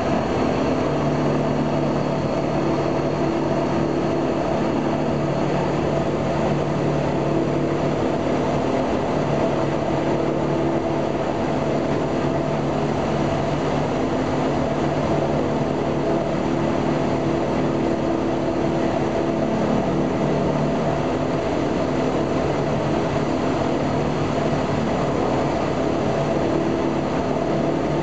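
Il-14's right Shvetsov ASh-82T radial engine and propeller running steadily during a ground run, heard from inside the cockpit: a constant, even drone with a steady pitch.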